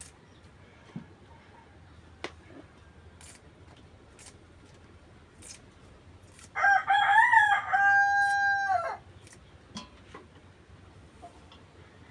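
A rooster crowing once, a loud call of about two and a half seconds that rises and then holds a long level note, starting a little past the middle.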